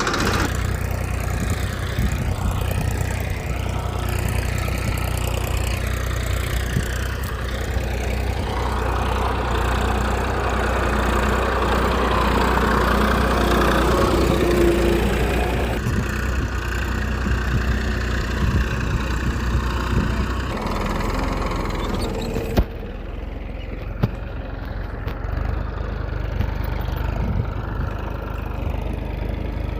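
A small engine running steadily at an even idle. About three quarters of the way through, a sharp click comes and the hiss above it falls away, leaving the low running sound, followed by another click.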